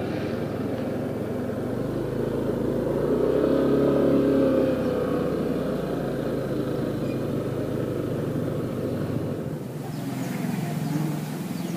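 Yamaha NMAX 155 scooter's single-cylinder engine running at low road speed, with wind and tyre noise. The engine note swells about four seconds in, and the low hum drops away near the end as the scooter slows to a stop.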